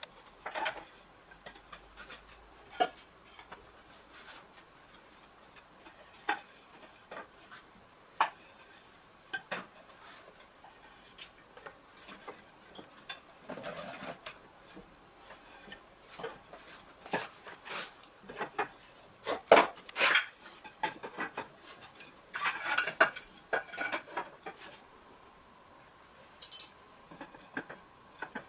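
Wooden barrel staves knocking and clattering against each other and a steel hoop as they are set upright inside it one by one, in irregular clacks, busiest and loudest a little past the middle.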